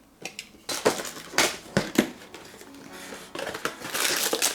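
Cardboard action-figure box being opened by hand: a few sharp clicks and taps from the flaps and packaging, then a longer scraping rustle near the end as the contents slide out.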